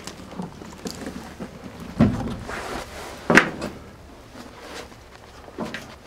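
Knocks and thumps of someone moving through a cramped metal locomotive interior: a dull thump about two seconds in and a sharper knock about a second later, with lighter clicks and rustling between.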